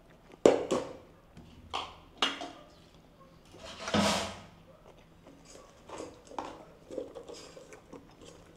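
Close-up chewing of crispy fried shrimp: a few sharp crunches, with a longer, louder crunch near the middle and smaller ones after.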